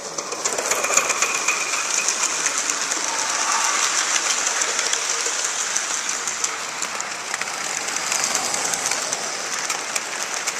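Gauge 1 model goods train running past close by: a steady rush of small metal wheels on the rails with rapid fine clicking over the rail joints and points, getting louder in the first half second as it arrives.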